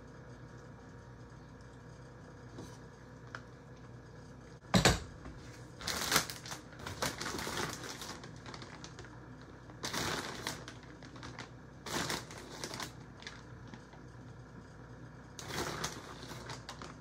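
A sharp knock about five seconds in, then a plastic bag of shredded cheese crinkling and rustling in several short bursts as a hand reaches into it.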